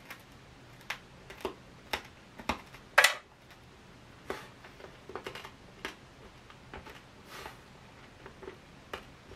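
A person chewing a piece of 153-year-old Civil War hardtack: a run of irregular dry crunches and cracks, roughly two a second, the loudest about three seconds in. The cracker is so hard it feels tooth-cracking.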